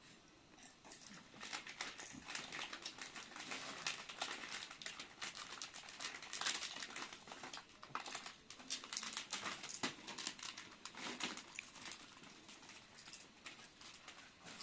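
Plastic snack wrappers crinkling as they are handled and torn open, a dense run of crackles that thins out near the end.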